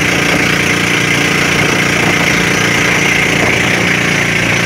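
Pump boat engine running steadily under way, heard on board, with an even rush of wind and water over it.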